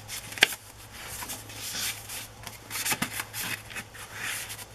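Paper rustling and sliding as a tag is pulled from a paper library pocket in a journal and tucked back in, with a crisp paper snap about half a second in.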